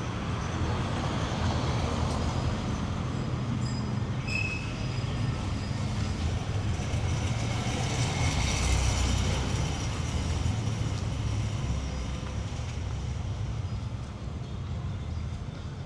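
City street traffic: a heavy vehicle rumbling past, swelling to its loudest about halfway through and fading near the end, with a brief high squeal about four seconds in.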